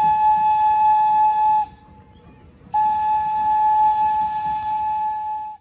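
Steam whistle of the Strasburg Rail Road's steam-powered Thomas the Tank Engine locomotive, blowing one steady note with a steam hiss. The blast stops about a second and a half in. The whistle sounds again from about three seconds in and cuts off suddenly.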